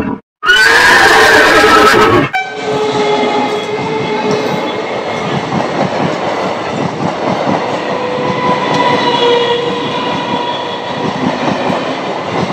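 A brief loud added effect comes first. About two seconds in, an EMU local electric train takes over, running past a level crossing close by with a steady hum and wheel noise.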